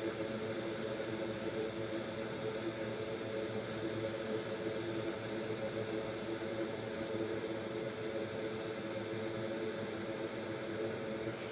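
A small electric fan running with a steady, unchanging whir and a low hum.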